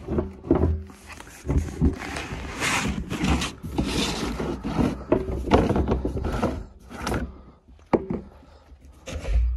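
Hands wrenching at the tight screw-on lid of a wide-mouth plastic barrel: plastic scraping and creaking in a run of irregular rough strokes, with a sharp click about eight seconds in.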